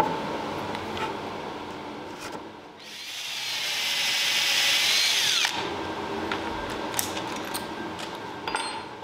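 Cordless drill boring a hole into the end of a wooden block, from about three seconds in for about two and a half seconds, its whine falling as it winds down. A few light knocks of handling come before and after.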